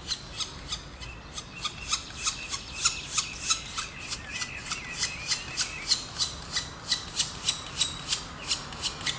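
Black woodpecker nestlings begging at the nest hole while being fed: a rhythmic rasping call, about three to four strokes a second.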